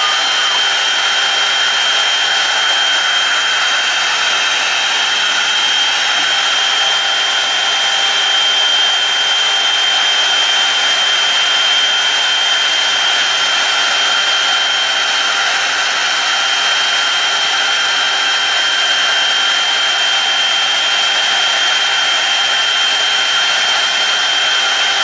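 Lens cutting machine running steadily while its cutter shapes a sunglass mask lens, a constant high whine over a rushing hiss.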